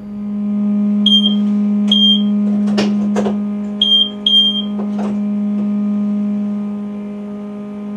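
Steady electrical hum of a Class 350 Desiro electric multiple unit standing with its power on, heard in the driver's cab. Four short, high electronic beeps sound in the first half, and a few sharp knocks come around the middle.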